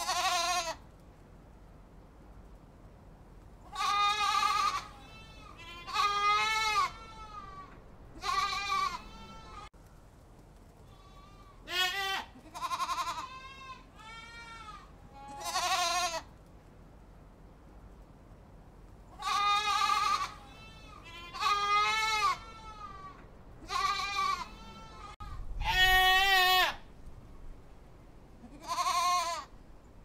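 Goats bleating: about a dozen separate bleats, each wavering in pitch and lasting up to a second, some louder and some fainter. The longest and loudest bleat comes near the end.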